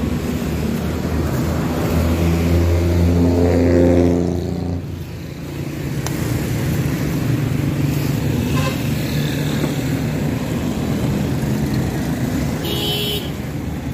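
Street traffic: a motor vehicle's engine passes close by, growing louder to a peak about four seconds in, then fading. A lower engine hum carries on after it, with a brief high-pitched tone near the end.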